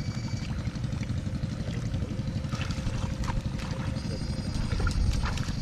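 Small boat engine running steadily with a low rumble. A thin, steady high whine stops about half a second in and comes back near the end.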